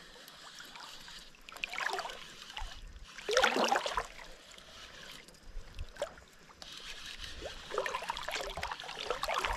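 Water splashing and lapping beside a small fishing boat, in three or four short bursts, the loudest about three and a half seconds in.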